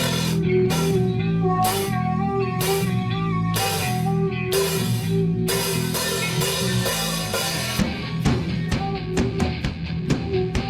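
A rock band playing, with drum kit and electric guitar. About eight seconds in, the drumming turns to quicker, sharper hits.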